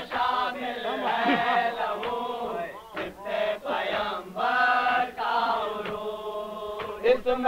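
Male voices chanting an Urdu salam, a Shia devotional recitation, the melodic line bending and pausing briefly twice midway.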